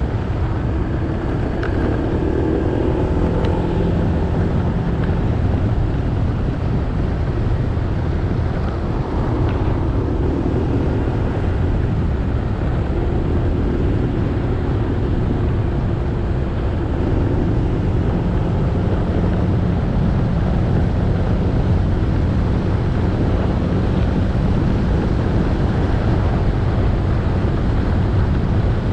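Motorcycle engine running steadily while riding, with road noise, getting slightly louder about halfway through.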